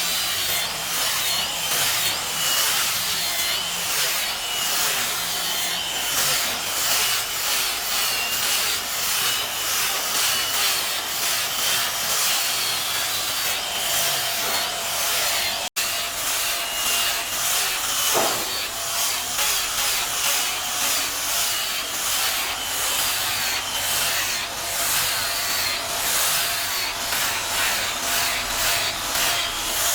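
Wood being worked with quick, evenly repeated rasping strokes, a few per second, like sawing or sanding, with a faint steady whine underneath. There is a sudden brief dropout about halfway through.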